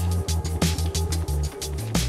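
Background music with a pulsing electronic bass line and a steady percussive beat.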